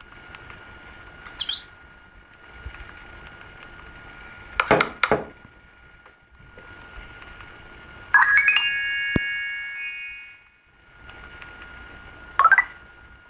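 Nokia 515 phone's loudspeaker playing short tone previews: a brief chirp about a second in, a few sharp clicks around five seconds, then a ringing alert tone at about eight seconds that holds for two seconds and fades away, and another short chirp near the end.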